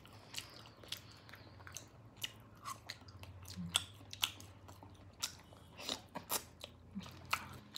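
Close-up eating sounds of sauce-coated chicken feet being bitten and chewed: irregular wet smacks and small crunches scattered throughout. A low, steady hum runs underneath and stops near the end.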